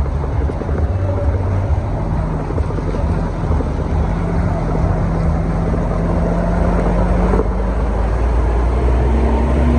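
Motor vehicle engine running close by: a steady low hum that shifts slightly in pitch near the end, over a dense rushing noise.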